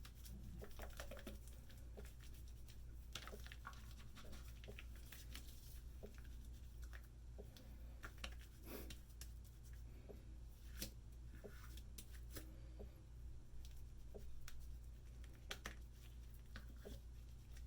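Faint, irregular crackling and scratching of thick soap lather being rubbed by hand onto a stubbled face.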